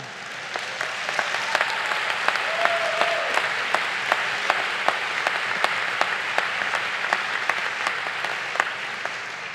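Large audience applauding: many hands clapping, swelling over the first second, holding steady, then tapering off near the end.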